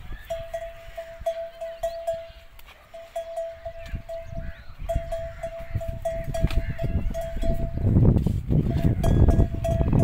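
A metal bell hanging from a camel's neck clanking in a steady rhythm of about three strokes a second as the camel walks, with short pauses between runs of strokes. Low rumbling bursts come in about eight and nine seconds in.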